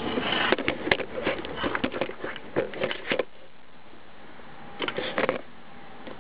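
Irregular rattling clicks from a 2001 BMW 530d (E39), taken to be an abnormal noise: a dense run for about three seconds, then a second short burst about five seconds in, over a quieter steady background.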